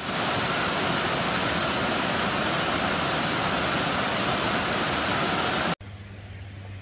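Mountain waterfall cascading over rocks: a steady, loud rush of water. It cuts off suddenly near the end, leaving a quieter low hum.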